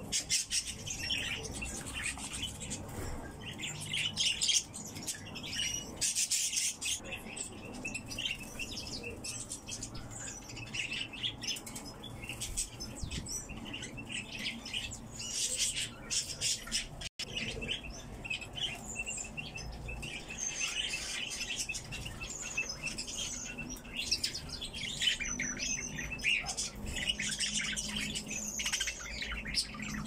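A mixed group of caged songbirds (bullfinches, goldfinches and a golden oriole) chirping and twittering in quick, overlapping calls, with occasional wingbeats as a bird flits between perches.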